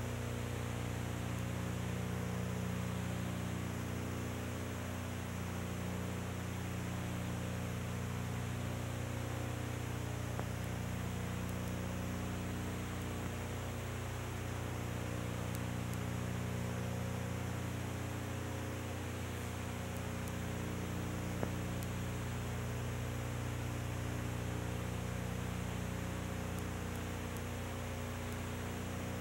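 Steady electrical mains hum with a low buzz and an even hiss, with no other sound: the noise floor of an old film soundtrack transfer.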